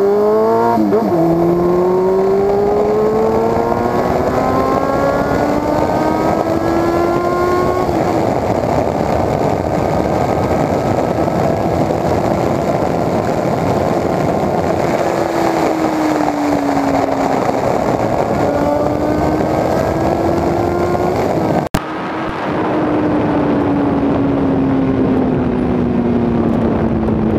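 Suzuki GSX750F's inline-four engine through a full straight exhaust, heard from onboard while riding at speed with heavy wind rush on the microphone. The engine note dips at a gear change about a second in, then climbs slowly as the bike pulls. It rises and falls with the throttle, cuts out for an instant past two-thirds through, and sinks steadily near the end as the rider eases off.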